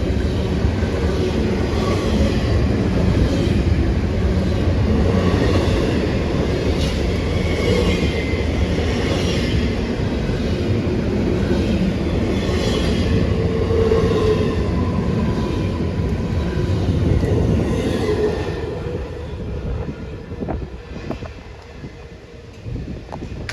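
Norfolk Southern freight train's cars rolling past on the rails, a steady loud rumble with wheel clatter and faint high wheel squeals. The sound falls away sharply about three-quarters of the way through.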